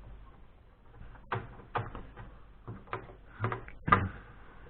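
Knocks and clicks of parts being handled and pulled out of a desktop PC case while it is being stripped for scrap, about five sharp strokes with the loudest near the end.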